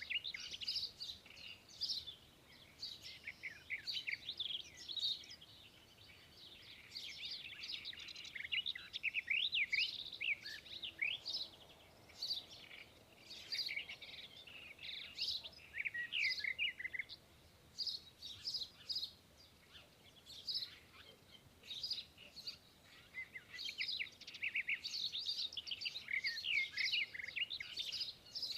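Many small birds chirping and twittering at once, a busy chorus of quick high sweeping notes that thins out for a few seconds just past the middle.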